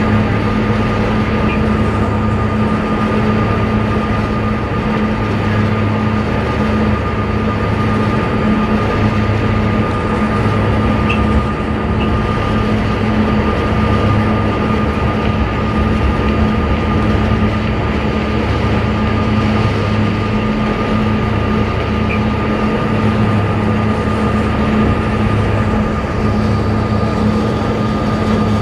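Fast ferry's engines running at cruising speed: a steady drone with a high whine and a low throb that swells and fades every few seconds, over the rushing of the churned wake water behind the stern.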